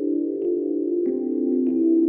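Background ambient music of sustained, bell-like tones that shift chord slowly every second or so.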